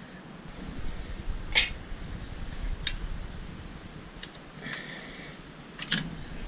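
A few sharp clicks and knocks of parts being handled, with faint scraping, as plastic covers and fittings come off a motorcycle's side pod. The loudest click comes about a second and a half in.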